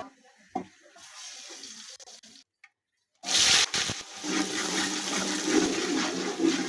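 Water poured and splashing into a cooking pot, starting suddenly about three seconds in after a faint, nearly silent stretch.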